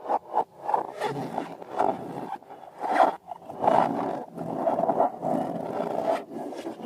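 Rubber balloons rubbing and squeaking under hands: a few quick strokes at the start, then longer, drawn-out squeaks and scrapes.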